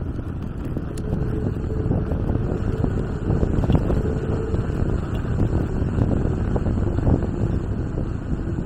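Wind buffeting the camera's microphone and low road rumble from a bicycle rolling steadily downhill on a paved road.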